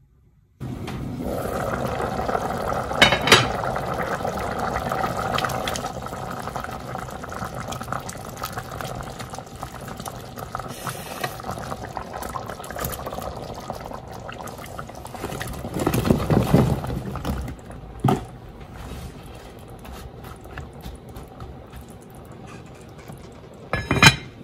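Liquid bubbling steadily in an enameled cast-iron Dutch oven. A few sharp knocks against the pot, a louder splashing stretch as cubed tofu is tipped in from a bowl, and a sharp clank near the end as the lid is set on.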